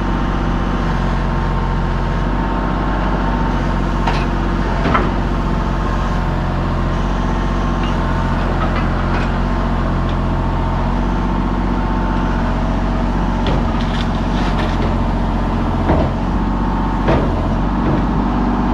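An engine running steadily at a constant speed, with a few short knocks over it. It cuts off abruptly at the end.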